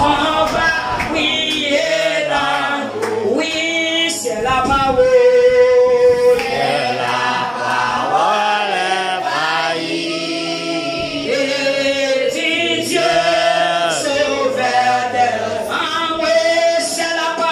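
A congregation singing a worship song together, led by a woman singing into a microphone through a loudspeaker.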